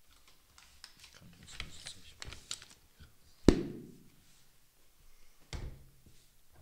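Things being handled and set down on a desk: a run of light clicks and rustles, then a sharp knock about halfway through, the loudest sound, and a duller thump near the end.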